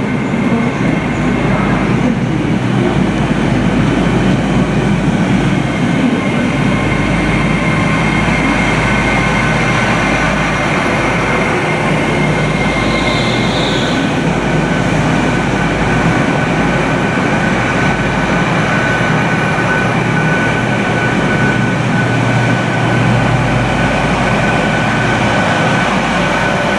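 Train running with a continuous steady rumble and a faint steady whine. A brief high wheel squeal comes about 13 seconds in.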